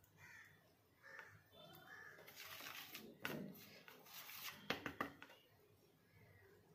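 Faint scraping and tapping of a plastic spoon stirring dry spice powder in a plastic mixing bowl and dipping into a glass bowl of tamarind water, with a few sharper clicks about three and five seconds in.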